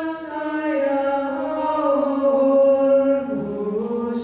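Orthodox nuns chanting a cappella, women's voices holding long notes that step slowly up and down in pitch.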